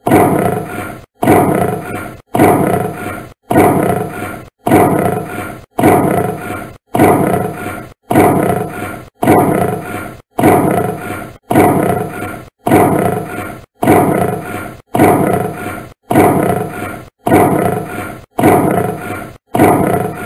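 Lion roaring: one short, grunting roar of about a second, repeated over and over at even spacing. Each roar starts loud and fades before the next.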